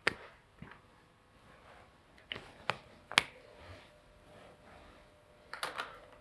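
Scattered sharp clicks and light taps at irregular spacing: one at the start, three between about two and three seconds in, and a quick cluster of several near the end, with a quiet room between them.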